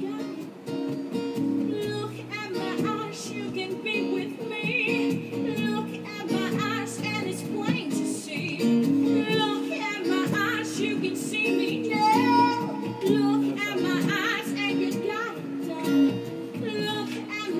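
A rock song played on guitar and drums, with a singing voice over held guitar chords and regular drum hits.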